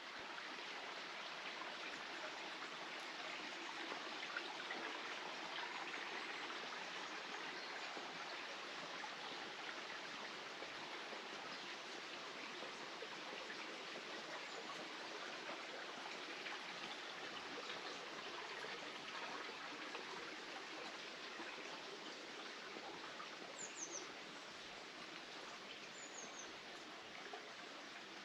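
A steady rush of water, with two short, high bird chirps near the end.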